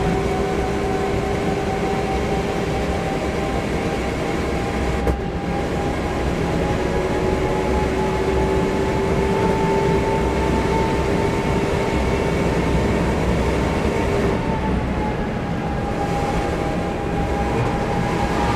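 Opel Corsa OPC's four-cylinder engine with a full exhaust running at high revs under full throttle, heard from inside the car over wind and road noise. The engine note climbs slowly, with a brief break about five seconds in, then drops in pitch and eases off about fourteen seconds in as the car lifts from around 210 km/h.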